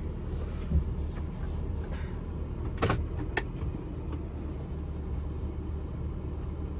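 Ram van's engine running, heard from inside the cab as a steady low rumble while it creeps across the lot to park, with two short clicks about three seconds in.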